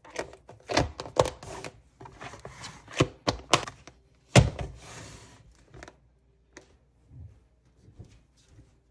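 Plastic lunch containers with clip-latch lids being handled on a wooden cutting board: a quick run of plastic clicks and knocks, the loudest thud a little past four seconds in, then only a few faint taps.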